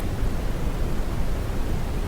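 Steady brown noise: an even, deep hiss with most of its weight in the low end and no change in level.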